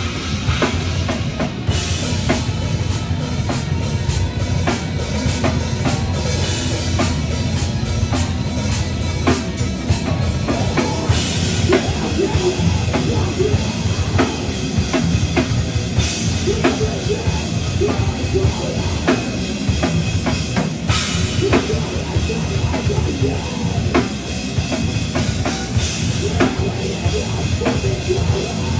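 Heavy metal band playing live and loud: electric guitar over a pounding drum kit, with dense drum hits and a cymbal crash every few seconds.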